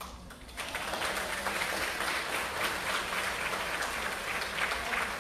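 Audience applauding, a dense patter of many hands clapping that starts about half a second in.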